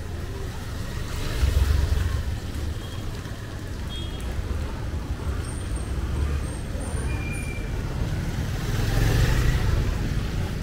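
Street traffic: a steady low rumble with two louder swells as vehicles pass, one about a second and a half in and one near the end.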